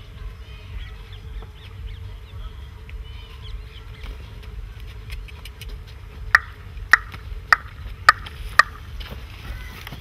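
Field ambience with small birds chirping over a low wind rumble and a faint steady hum. In the second half come five sharp, loud clicks, evenly spaced about half a second apart.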